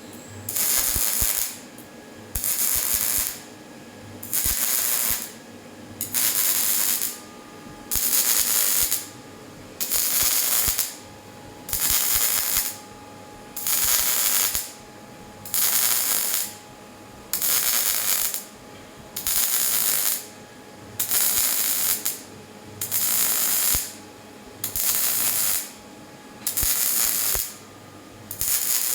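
Robotic MIG/MAG welding arc crackling in short stitches, each about a second long, switching on and off roughly every two seconds to build a fish-scale weld bead.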